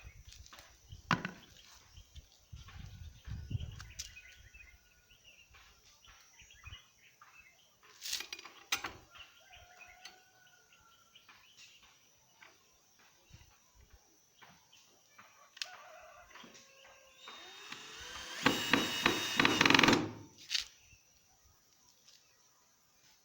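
Scattered clicks and knocks of tools and lock hardware being worked on a wooden door. About 18 seconds in comes a loud two-second burst of a power tool, which then cuts off.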